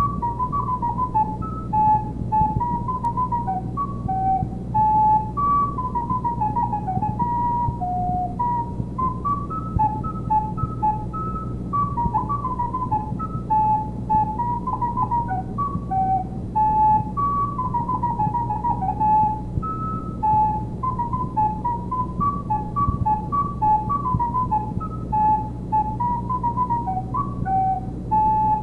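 A solo recorder playing a lively melody of quick, detached notes that step up and down within a narrow range, over a steady low hum.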